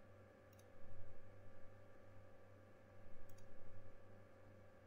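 Computer mouse clicking, a few single clicks about half a second and three seconds in, over a steady low electrical hum.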